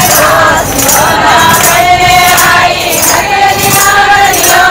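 Group of women singing a Marwari devotional bhajan to Krishna in unison, with hand-clapping in time.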